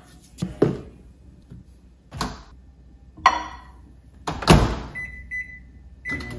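Plate and microwave handling: several knocks and clatters, the loudest about four and a half seconds in as the microwave door is shut. A Samsung over-the-range microwave's keypad then gives a few short beeps as the time is set.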